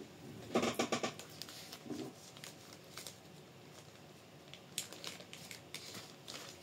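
Small plastic parts bags crinkling and small kit parts clicking as they are picked through by hand, in short bursts about half a second in and again around five seconds in.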